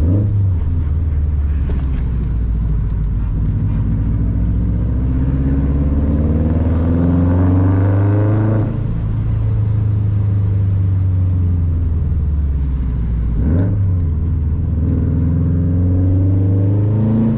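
Subaru WRX STI's turbocharged flat-four engine accelerating, the revs climbing for several seconds, dropping at a gear change about nine seconds in, then dipping again near the end and climbing once more.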